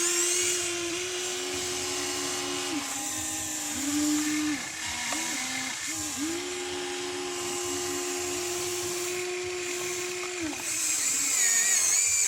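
Small electric motors of a radio-controlled construction toy whining at steady pitches that switch on, off and change every second or two. A thin high-pitched whine joins them at the start and again near the end.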